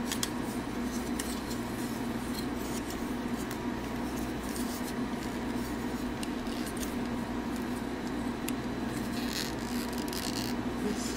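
Plastic parts of a transforming toy figure clicking and rubbing faintly as they are handled, a few soft clicks near the end, over a steady background hum.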